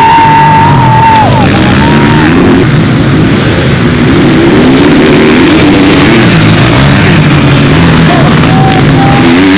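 Rock music with dirt bike engines revving up and down beneath it; a long held high note sounds in the first second or so.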